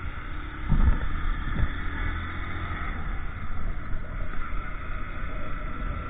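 Honda motorcycle engine running as the bike gathers speed, with a low rumble of wind on the microphone. Two short low thumps come about a second in.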